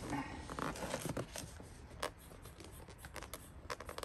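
Tight ballistic-fabric seat cover being worked down over a headrest: the cloth rustles and scrapes for about the first second, then scattered sharp clicks and taps follow.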